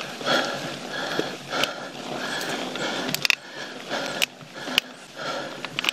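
Mountain biker breathing hard in quick rhythmic breaths, about two a second, over sharp clicks and rattles from a YT Jeffsy mountain bike rolling over rock; the loudest click comes about three seconds in.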